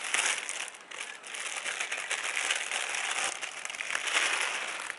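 Plastic packaging crinkling and rustling continuously as it is unwrapped by hand, with a few brief lulls.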